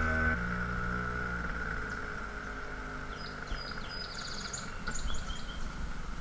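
Small outboard motor pushing a canoe along a river, its engine note falling slowly over the first few seconds, with water rushing past the hull. Birds chirp a few times around the middle.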